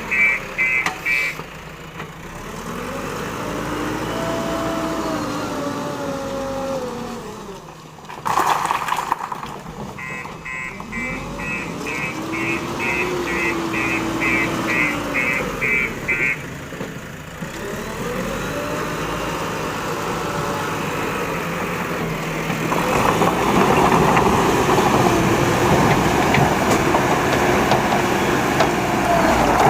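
Diesel engine of a JCB 3DX backhoe loader working, its pitch rising and falling again and again as the machine is put under load. A warning alarm beeps about twice a second near the start and again through the middle.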